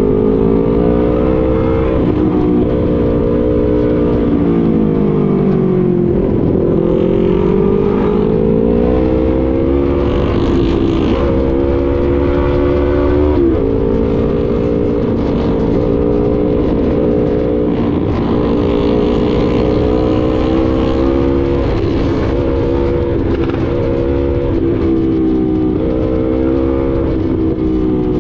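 A motorcycle engine running while riding in traffic. Its pitch falls about six seconds in as it slows, then climbs again, with small pitch changes later on. A low wind rumble runs under it.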